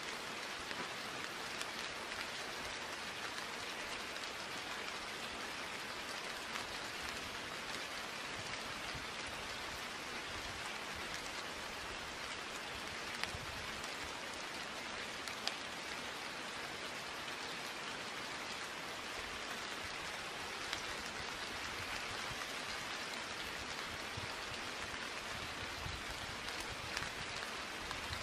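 Steady rain falling: an even hiss with a few sharper drop ticks.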